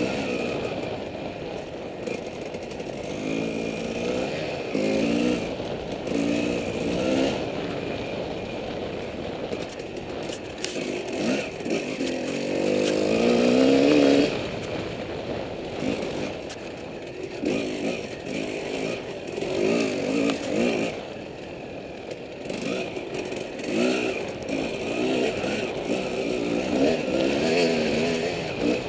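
Off-road dirt bike engine at racing speed, heard close up from an onboard camera, revving up through the gears again and again in rising pitch sweeps, the hardest pull about halfway through. Wind rush and chassis clatter run underneath.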